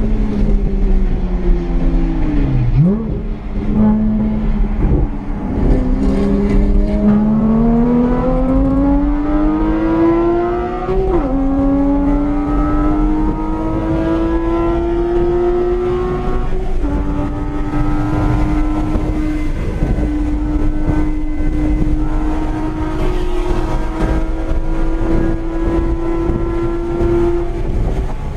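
Porsche 981 Cayman's 2.7-litre flat-six, fitted with an IPD intake plenum and Soul Performance cat-back exhaust, heard from inside the cabin at track speed. The engine note falls with two quick blips of revs in the first few seconds, then climbs hard under acceleration, drops sharply about eleven seconds in as it shifts up, and rises slowly through a long pull in the next gear.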